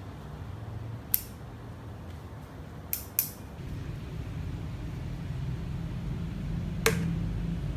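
Small pruning scissors snipping through thin green stems: three sharp clicks in the first half. About halfway a steady low rumble takes over, with one more sharp click near the end.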